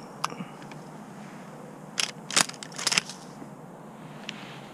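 Dry leaves and brush crunching and crackling close to the microphone, in a short loud burst about two seconds in, as the hunter shifts position and lowers the shotgun. It is preceded by a couple of sharp clicks at the start.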